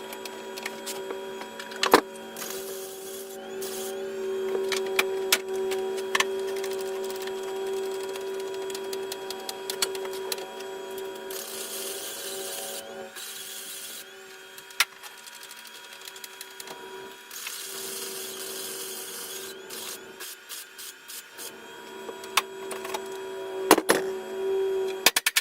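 A small electric power tool running with a steady whine, used for rust repair on car body metal. It gives two stretches of harsher, rougher noise partway through, with scattered clicks and knocks of handling.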